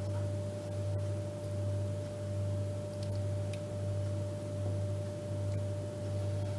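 A steady low electrical hum that swells and fades evenly, with a thin steady tone above it. A few faint clicks of a metal spoon against a glass baking dish come through as the food is stirred.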